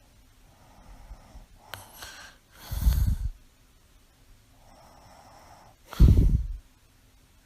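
A sleeping woman's breathing with mild snoring. Twice, about three seconds apart, a quiet breath is followed by a loud, short breath lasting about half a second.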